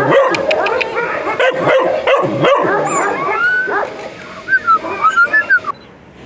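Several puppies yipping and whining over one another in a dense run of short, high rising-and-falling cries, thinning to a few sharp yips and cutting off suddenly near the end.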